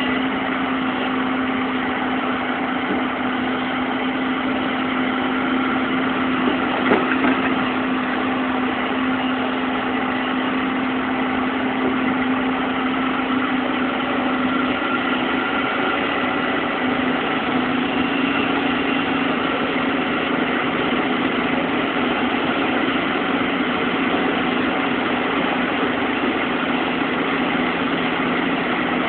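Bulldozer's diesel engine running steadily, with one brief knock about seven seconds in.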